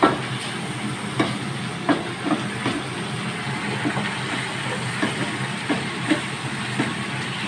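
Diced meat sizzling in a frying pan on a gas stove while a wooden spatula stirs it, knocking and scraping against the pan at irregular moments about every half second to a second, over a steady low hum.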